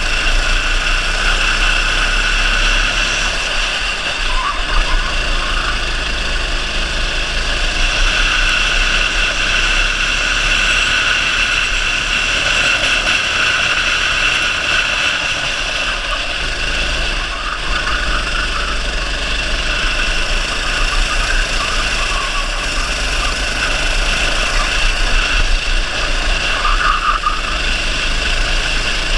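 Rental kart's 270 cc four-stroke engine running hard, heard onboard, a steady drone that dips slightly now and then as the kart brakes into corners, with wind and tyre hiss.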